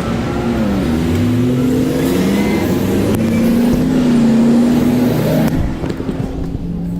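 Car engine under acceleration: its pitch dips briefly, climbs after about a second, holds steady, then falls away near the end.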